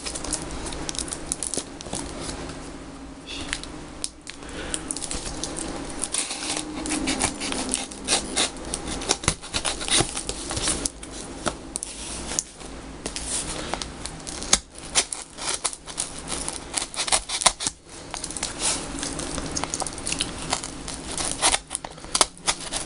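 Pocket knife cutting and scraping through the shiny yellow tape wrapped around a small cardboard box, with the tape and plastic crinkling and tearing in a dense, irregular crackle as the box is turned in the hands.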